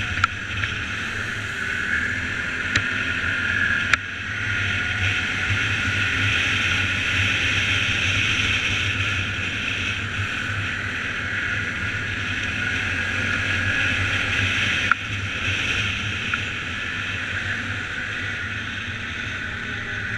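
ATV engine running steadily as the quad is ridden along a dirt trail, heard from the rider's own machine. There are a few short clicks, with jumps in loudness about 4 and 15 seconds in.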